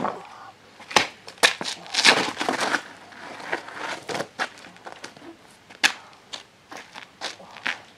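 Irregular crackling and rustling with scattered sharp clicks, from bedding and clothing moving close to the microphone.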